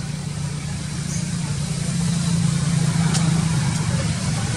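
Steady low hum of a running engine, like a vehicle idling, getting louder about two seconds in, with two faint clicks about three seconds in.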